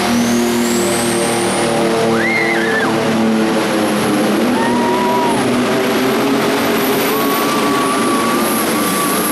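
Light Limited Super Stock pulling tractor's turbocharged diesel engine at full throttle, dragging a weight-transfer sled. It runs loud and steady, with a high turbo whine that climbs steeply over the first two seconds and then holds.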